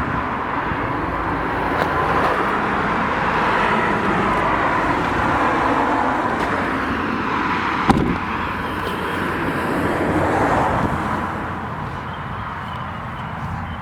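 Steady outdoor road-traffic noise, with one sharp knock about eight seconds in.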